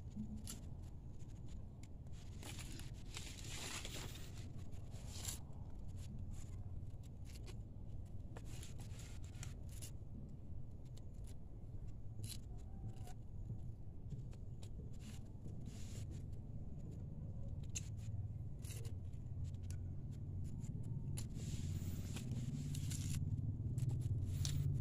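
Hands scraping and rummaging through loose, freshly dug soil and pulling arrowroot tubers and roots free: soft scraping and rustling with many small crackles, louder about three seconds in and again near the end.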